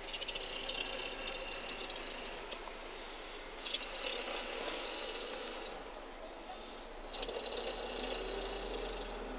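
A sleeping driver snoring: three long snoring breaths, each about two seconds, coming roughly every three and a half seconds.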